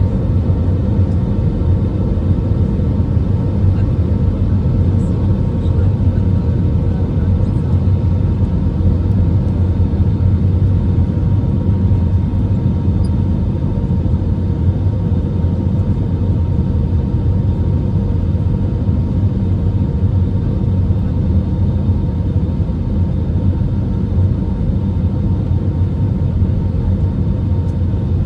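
Steady cabin noise inside an Airbus A319 airliner in flight: a constant low rumble of airflow and engines, with a faint steady hum running through it.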